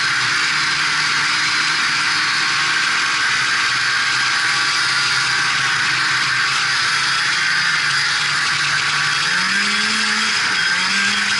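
Polaris Indy Sport 340 snowmobile's two-stroke engine running at a steady trail speed under a strong rushing hiss, then speeding up twice in quick succession near the end.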